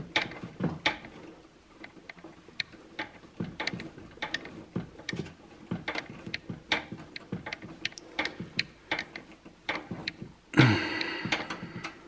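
Screwdriver turning a screw into a graphics card's metal mounting bracket on a steel PC case: irregular small clicks and metallic scrapes as the screw is worked in. A louder rasp comes near the end.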